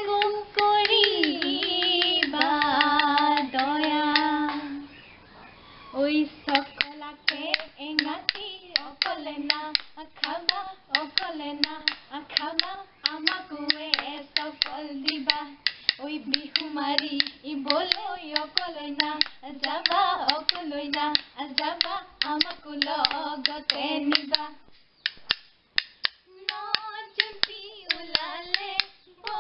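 Two women's voices singing a bihu naam, an Assamese Bihu folk song, kept in time by a quick, even clacking of a split-bamboo toka clapper and hand claps. The singing breaks off briefly twice while the clapping goes on.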